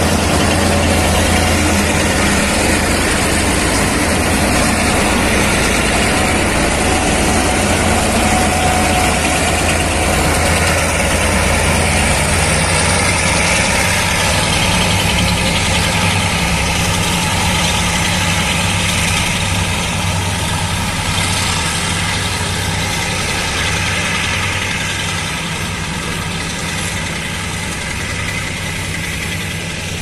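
Several diesel-electric freight locomotives pulling a loaded train under power: a steady low engine drone, fading gradually over the last third as they move away while the loaded wagons roll past.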